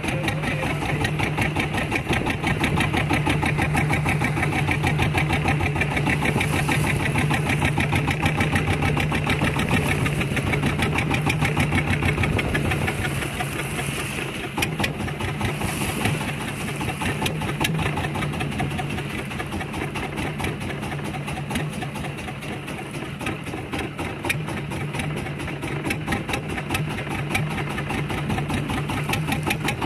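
Small fishing boat's engine running steadily, with a fast, even pulsing beat.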